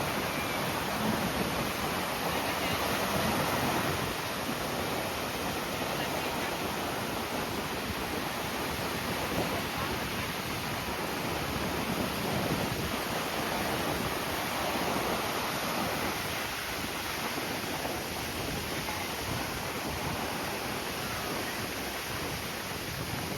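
Strong wind mixed with the wash of sea surf: a steady rushing noise.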